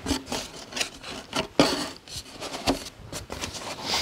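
Hands rummaging in a cardboard box, plastic playset parts scraping and rubbing against the cardboard, with a few light knocks, the loudest about a second and a half in.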